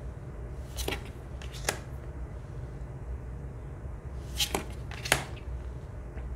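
Tarot cards sliding off the front of a hand-held deck as they are flipped through one at a time: four short swishes, a pair about a second in and another pair about four and a half seconds in, over a low steady hum.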